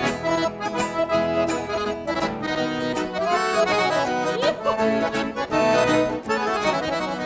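Instrumental passage of a gaúcho song: an accordion plays the melody over a steady rhythmic backing.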